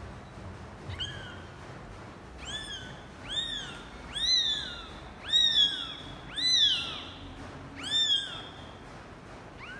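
Newborn kitten mewing: about seven high-pitched cries, each rising and then falling, spaced roughly a second apart and loudest in the middle stretch.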